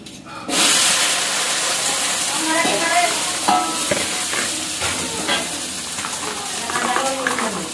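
Food frying in hot oil: a steady sizzle that starts abruptly about half a second in, with faint voices underneath.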